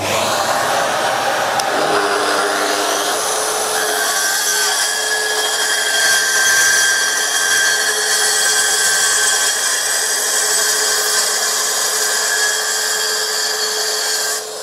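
Plunge saw running and cutting a small piece off a wooden workpiece: a steady motor whine with the blade cutting, starting abruptly and holding an even level throughout.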